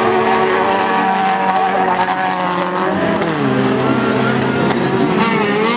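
Several autocross cars' engines revving hard on a dirt track, overlapping notes rising and falling as the drivers accelerate, lift off and shift. One engine note drops about three seconds in and climbs again near the end.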